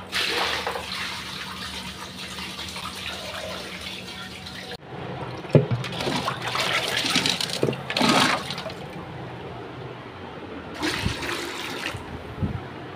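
Dirty aquarium water poured from a bucket onto a bathroom floor, a steady gushing splash for about five seconds that cuts off abruptly. Then water being scooped out of the fish tank with a mug, in uneven splashes and sloshes.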